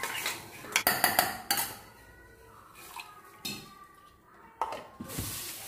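Spoon and metal kitchen vessels knocking and clinking: a quick run of sharp knocks in the first two seconds, then a couple of softer ones later.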